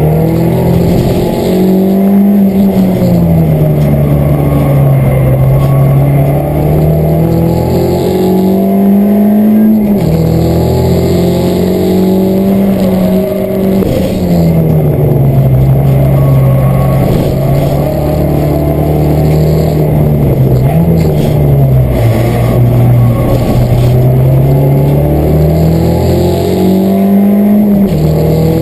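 Peugeot 207 race car's engine heard from inside the cabin, pulling hard through the gears. Its revs climb and sink, with sudden drops at gear changes about ten, fourteen and twenty-eight seconds in.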